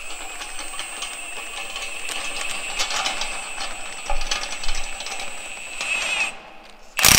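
Cordless drill turning the threaded rod of a spring-compressor tool, compressing a field cultivator shank's coil spring: a steady motor whine with rapid clicking that stops about six seconds in. A short, loud burst of noise follows near the end.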